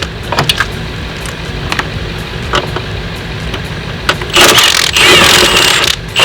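A few sharp clicks and knocks from parts being worked loose, over a steady low hum, then a loud rushing noise for nearly two seconds near the end.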